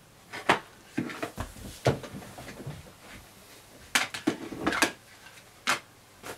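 White plastic lids clacking and knocking as they are handled and set down on a desk: a run of irregular sharp knocks with a busier cluster about four seconds in.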